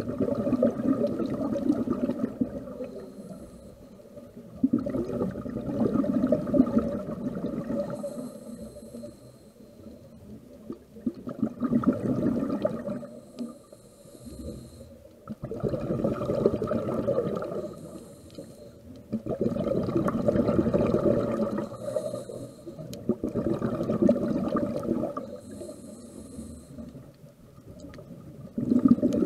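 Scuba diver breathing through a regulator underwater: a loud rush of exhaled bubbles every three to four seconds, with a faint hiss of each inhalation in the gaps between.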